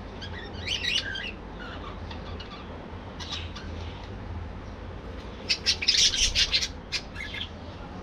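Budgerigars chirping and squawking in short bursts of sharp, high calls, with the loudest flurry of chatter a little past the middle.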